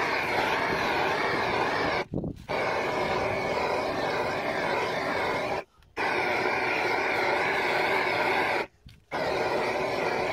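Propane gas torch burning with a steady roar of the flame, as used to shrink heat-shrink sleeves onto cable cores. The sound cuts out suddenly three times for a fraction of a second.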